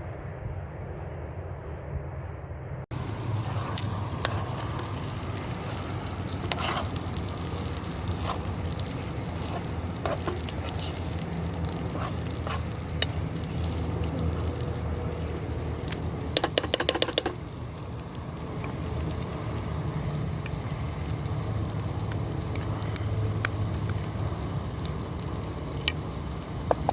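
A low rumble for about three seconds, then food frying and sizzling in a pan, with scattered clicks and scrapes as it is stirred, and a quick run of clicks about seventeen seconds in.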